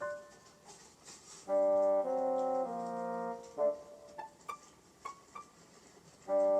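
Background music: a melody of three held notes stepping downward, followed by a few short, sharp notes, with the same descending phrase starting again near the end.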